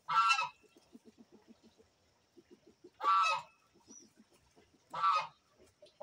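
Farmyard poultry calling: three short, harsh, honking calls, one at the start, one about three seconds in and one about five seconds in. Faint, quick, low ticks run between them.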